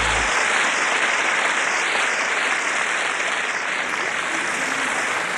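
A crowd applauding, steady dense clapping at the end of a dance tune.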